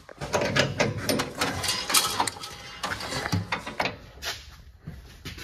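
A quick, dense run of mechanical clicks and rattles as parts are handled, loudest in the first three seconds and then thinning to scattered clicks.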